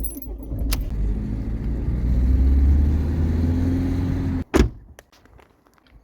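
Car engine running, its note rising as it pulls away, then cutting off abruptly with a knock about four and a half seconds in.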